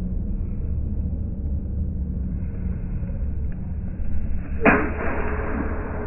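Steel fencing sabers striking together once, about three-quarters of the way in: a single sharp clang that rings on, over a steady low rumble.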